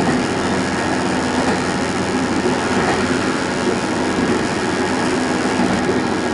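Diesel railcar running along the line, heard from inside the car: a steady engine drone mixed with the rumble of wheels on rail.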